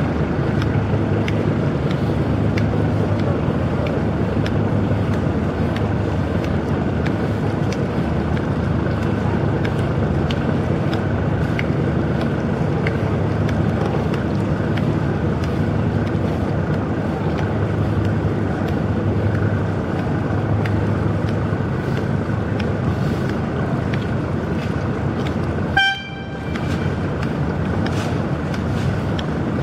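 Boat's diesel engine running steadily with a low drone, and near the end a ship's horn gives one short toot.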